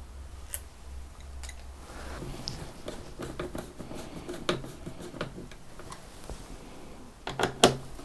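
Scattered light clicks and taps of a metal M.2 heatsink cover being handled and screwed down onto a motherboard with a screwdriver, with a louder run of clicks near the end.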